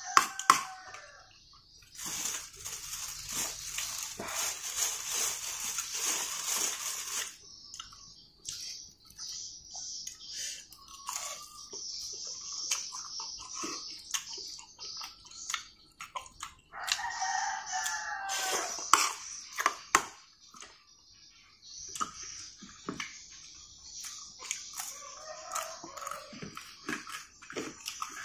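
A rooster crowing several times, the longest crow about two thirds of the way in, over the clicks of a spoon on a plate. A high hiss comes and goes.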